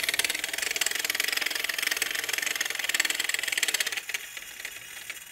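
Wind-up aubergine toy's clockwork shaking motor running, a fast, quite noisy buzzing rattle as the springy toy vibrates. It drops away sharply about four seconds in, leaving a faint rattle.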